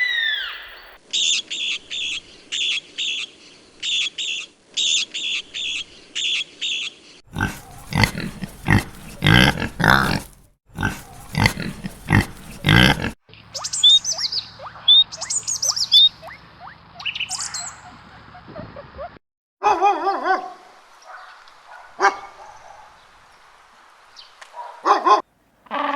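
A series of different animal calls played one after another: about six seconds of quick repeated chirps in groups, then several seconds of loud, rough, rapid pulses, then short falling whistles and scattered calls.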